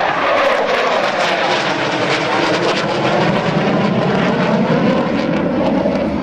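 F-16 Fighting Falcon's jet engine heard loud as the fighter passes, its pitch falling in the first second, then a rough, crackling jet noise that thickens in the low end.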